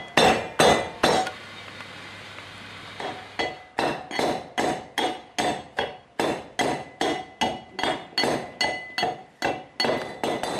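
Brass mehras mortar pounded with its brass pestle in a steady rhythm, about two to three ringing metallic strikes a second, crushing garlic, salt and hot pepper for dersa paste. The strikes stop for about two seconds about a second in, then resume.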